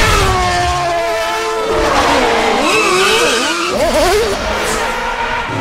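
Race car engines revving and tyres squealing, the sound effects of a car racing game. The engine note holds steady at first, then squeals swoop up and down in pitch through the middle.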